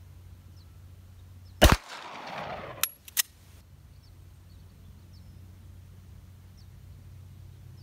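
A single shot from a 9mm Benelli MP3S pistol, echoing for about a second, followed about a second later by two sharp clicks.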